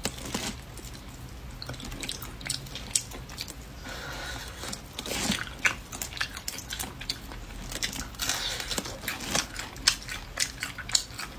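Boiled crayfish shells being cracked and peeled by hand close to the microphone: many irregular sharp clicks and crackles, mixed with biting and chewing.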